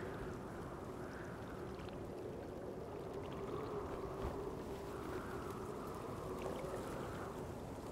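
Steady outdoor ambience from a film soundtrack: a low rushing noise that swells and fades gently, over a faint steady hum.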